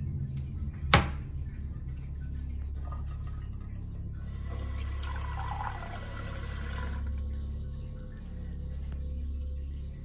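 Water running from a kitchen mixer tap into a drinking glass for about three seconds in the middle. A single sharp knock comes about a second in.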